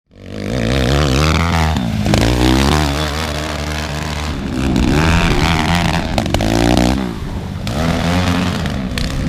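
An engine revving up and down, its pitch rising and falling several times.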